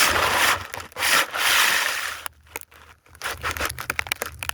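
Rough rubbing and scraping noises in two long stretches, with a short pause in the middle.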